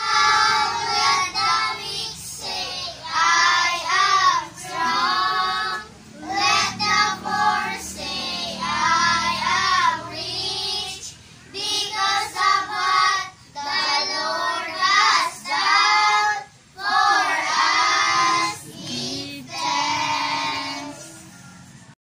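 A small group of children singing a song together, in short phrases with brief pauses between them.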